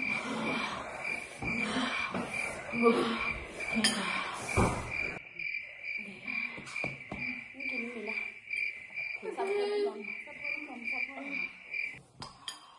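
Cricket chirping, a steady pulsed chirp about three times a second that cuts off suddenly near the end, over forks clinking against bowls.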